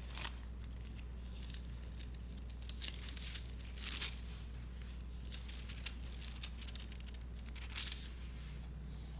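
Several people leafing through thin Bible pages, with short scattered rustles of paper over a steady low hum.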